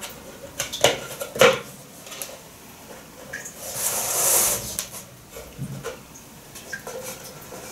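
A plastic jug of cake batter and its lid handled on a kitchen table: two light knocks about a second in, a longer rustling scrape around four seconds in, then a few small clicks.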